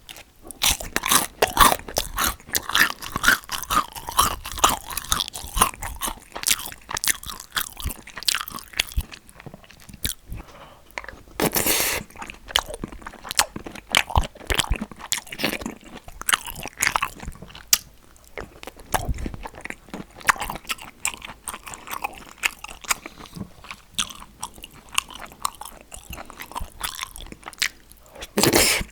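Close-miked eating: many sharp, irregular crunching bites and chewing.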